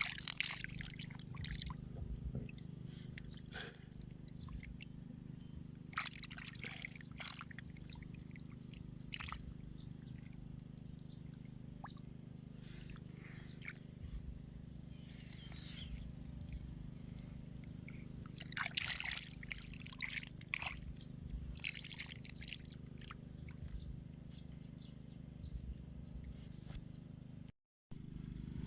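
Shallow field water splashing and sloshing in short irregular bursts over a steady low hum, with the sound cutting out completely for a moment near the end.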